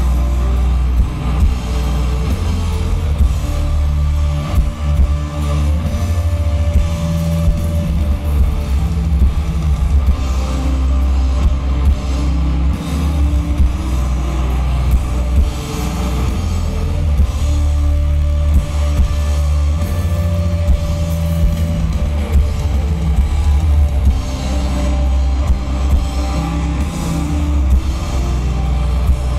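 Live post-metal band playing: distorted electric guitars, bass and a drum kit, loud and continuous with a heavy low end.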